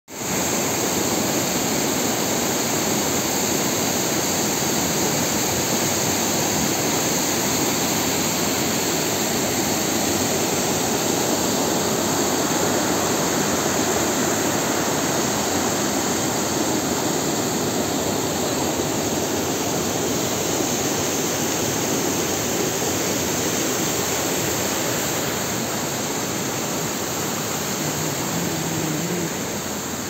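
A waterfall and the whitewater stream below it rushing steadily over limestone rocks, a little quieter near the end.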